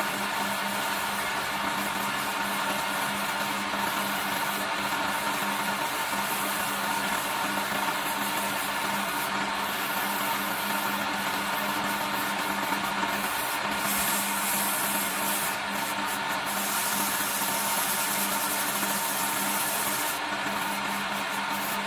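Wooden spindle spinning on an electric-motor-driven lathe, with sandpaper held against it: a steady rubbing hiss over the even hum of the running motor.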